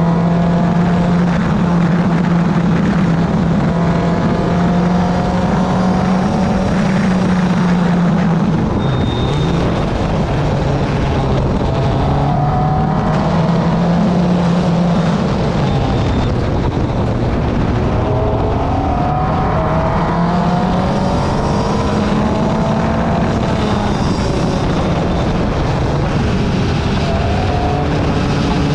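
Car engine and road noise heard while driving. The engine note holds steady, falls away twice and then rises again as the car slows and picks back up.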